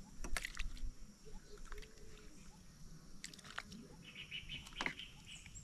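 Woodland ambience: birds chirping, mostly in the second half, over a steady faint high-pitched drone, with scattered sharp clicks and knocks.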